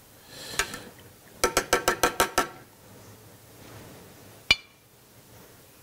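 Metal slotted spoon clinking against a rim, a quick run of about eight ringing clinks, then one sharper clink near the end. Before them comes a brief soft hiss.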